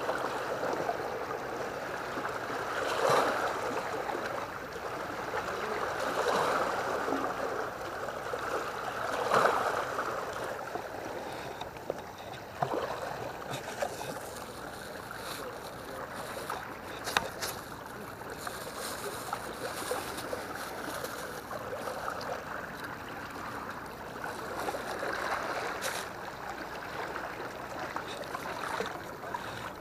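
Sea water washing and splashing against a concrete seawall, in swells every few seconds, with a few sharp clicks.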